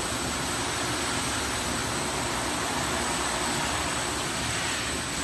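Industrial brush sanding machine running, its abrasive brush rollers spinning with no board under them, giving a steady dense rushing noise with a thin high whine over it.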